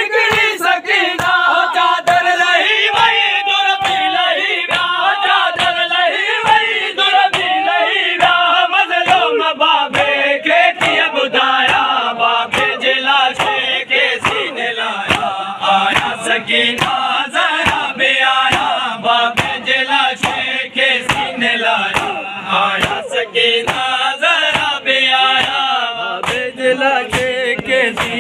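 Men chanting a Sindhi noha lament in unison, the crowd's hands striking their chests in matam, a steady beat about twice a second under the singing.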